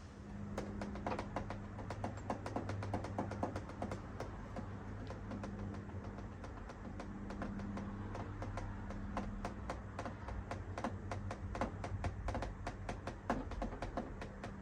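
A rapid, irregular run of small clicks and taps, several a second, over a low hum that comes and goes.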